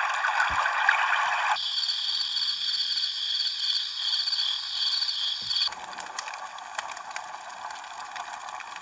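An alarm clock's built-in sleep sounds played through its small speaker, switched abruptly twice. First a steady rushing noise, then about a second and a half in a high pulsing trill. About six seconds in comes a crackling campfire sound.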